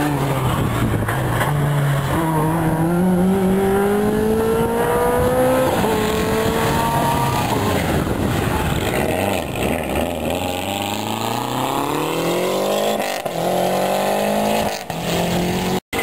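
Rally car engines under hard acceleration: the engine note rises in pitch through the gears and drops back at each gear change, over several pulls.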